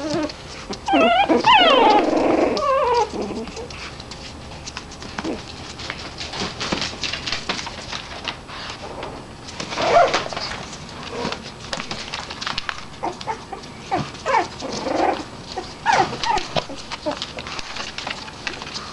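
Chug (Chihuahua–pug mix) puppies whimpering and yipping in falling high cries, loudest a second or two in, with shorter cries later. Newspaper bedding rustles and crackles under their paws between the cries.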